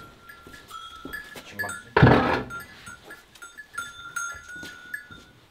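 One short, loud call from a farm animal about two seconds in, over a bell hanging from a cow's collar clinking on and off as the animals move.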